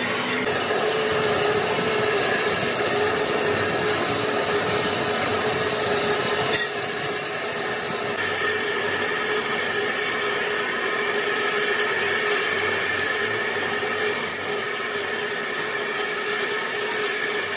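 Large manual lathe turning the rim of a big spoked gear blank: the cutting tool scrapes steadily against the rotating metal over the machine's running noise, with a held whine and a couple of light clicks.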